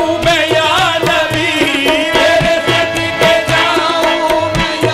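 Live qawwali music: harmoniums holding steady drone chords under tabla strokes, the bass drum's pitch bending up and down. A singer's voice carries wavering, ornamented runs over them.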